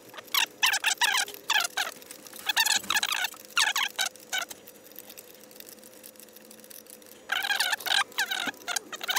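Hand work inside a scooter's front cowl: several short bursts of rapid, squeaky clicking from a tool and from plastic and wiring being handled, over a faint steady hum.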